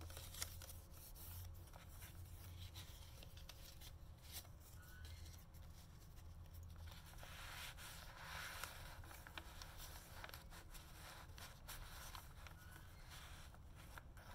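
Faint rustling and rubbing of paper as loose paper ephemera is handled and slid in and out of a journal pocket, with a few soft clicks over a steady low hum.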